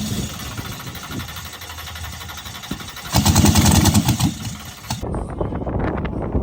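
Drag car engine being cranked and struggling to start cold. It fires in a loud, pulsing burst for about a second, three seconds in. The cranking hiss cuts off suddenly about five seconds in.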